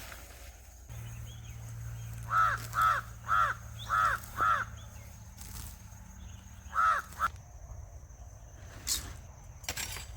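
A crow cawing: a run of five harsh caws about half a second apart, then a pause and two more caws.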